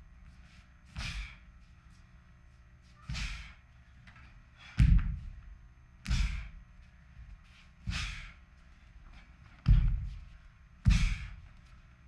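A Taekwon-Do practitioner performing a pattern: about seven sharp movements a second or two apart, each a thud of the feet landing or stamping on the floor together with a quick rush of breath and snapping uniform cloth. The loudest come about five seconds in and twice near the end.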